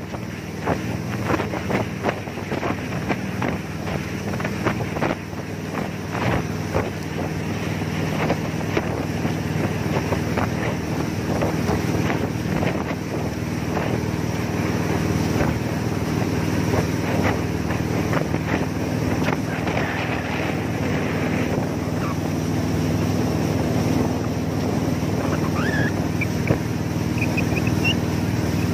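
Jet boat engine running with a steady low drone, wind buffeting the microphone over it, and growing gradually louder.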